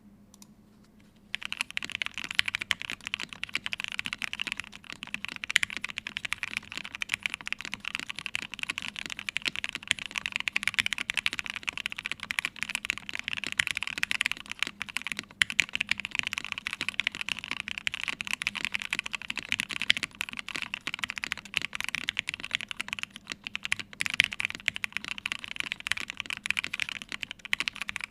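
Matrix Vita mechanical keyboard with lubed, filmed Gateron Ink Black v2 linear switches on an aluminium plate and ABS Cherry-profile keycaps, typed on continuously: a fast, steady run of key clacks that starts about a second and a half in.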